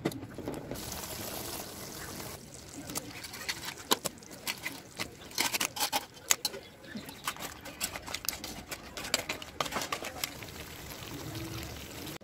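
Raw crab pieces added to a metal pan of wet masala gravy. A wet pouring sound comes first, then a run of sharp clicks and knocks as the shells hit the pan and each other.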